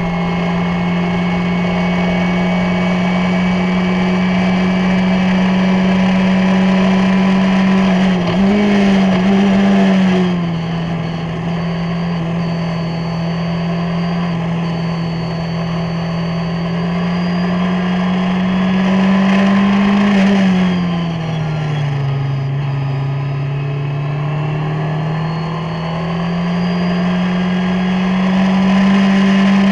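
Onboard sound of a Skip Barber formula race car's 2.0-litre SOHC engine at racing speed, held high in long steady pulls. The revs drop with a brief wavering about eight seconds in as it brakes and downshifts, fall again a little past twenty seconds in, then climb once more.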